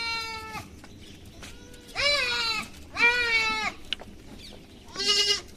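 Goats bleating: one call fades out just after the start, then three more bleats follow about a second apart, the last one higher-pitched.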